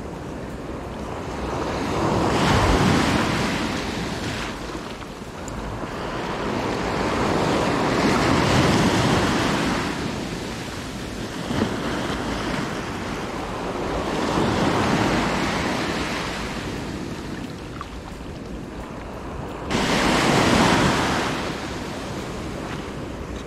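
Small sea waves breaking and washing in around the shoreline in four surges, roughly every six seconds, the last one arriving suddenly near the end, with wind buffeting the microphone.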